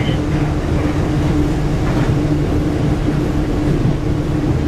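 Running noise of a 1967 St Louis Car Silverliner III electric railcar heard from inside its cab while under way: a steady hum over a low rumble of motors and wheels on rail.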